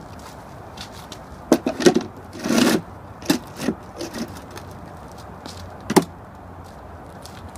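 Plastic RhinoRamps car ramp being set down on asphalt and pushed into place in front of a tyre: a few knocks, a short scrape a little over two seconds in, more small knocks, then one sharp knock about six seconds in.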